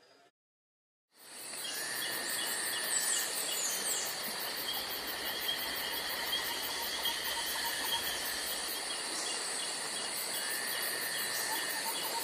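A steady chorus of insects chirping and trilling, with a few bird calls over it. It fades in about a second in, after a short silence.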